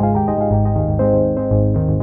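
Background music: sustained keyboard and synthesizer chords, the notes changing about every half second.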